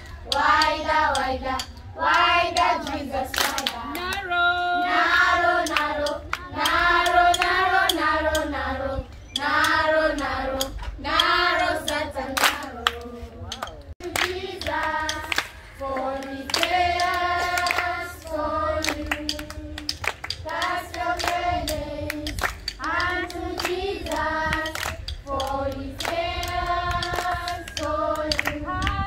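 A group of children and women singing a praise song together, clapping their hands along.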